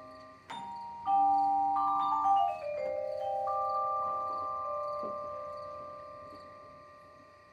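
Vibraphone played with mallets: a single struck note, then a quick descending run of notes about two seconds in, the metal bars left ringing and overlapping as they slowly die away.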